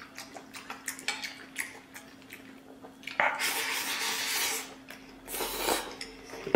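Eating sounds: wooden chopsticks clicking against a stainless-steel rice bowl, then, about three seconds in, a loud noisy slurp lasting over a second as rice is shoveled from the bowl held at the mouth, and a shorter rush of breath near the end.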